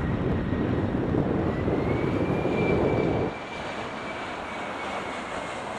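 Boeing 737-300's CFM56 turbofan engines at approach power, a steady jet rumble with a thin high whine that rises slightly about two seconds in. The low rumble drops off abruptly a little past three seconds, leaving the whine and a lighter hiss.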